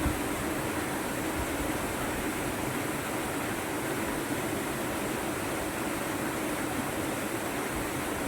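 Steady rushing of a waterfall, a constant roar of falling water.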